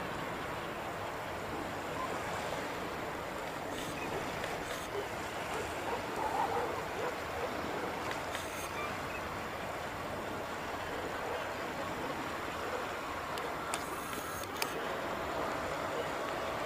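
Distant, steady roar of a Boeing 737-800's CFM56 jet engines as the airliner rolls out along the runway after landing, with a few light clicks near the end.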